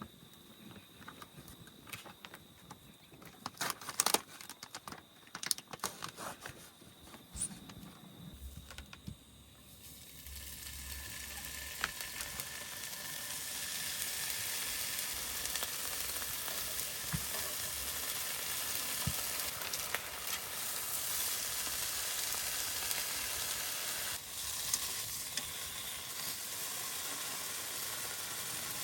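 A few sharp clicks and knocks, then food starts sizzling in a hot pan about ten seconds in. The sizzle builds over a few seconds and then holds steady.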